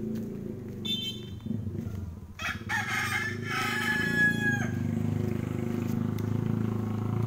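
A rooster crowing once, a long call of about two seconds that holds its pitch and drops at the end, with a brief higher call about a second before it. A steady low rumble runs underneath.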